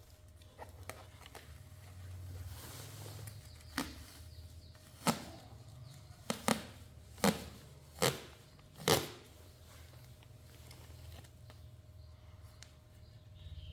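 A series of about seven sharp knocks or cracks, irregularly spaced about a second apart, over a low steady hum.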